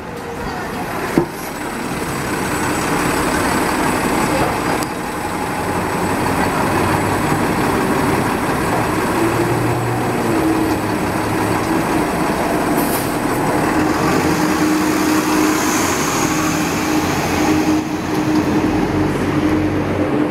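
City transit bus engine running at the curb and then pulling away, with a steady whine over the engine noise in the second half. A sharp knock sounds about a second in.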